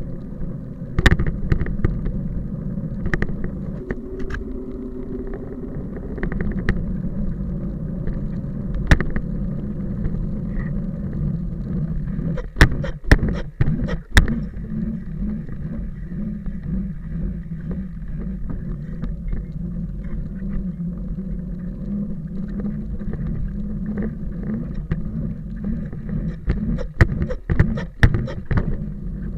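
Steady low rumble of something moving, with sharp knocks and rattles now and then, clustered about twelve to fourteen seconds in and again near the end.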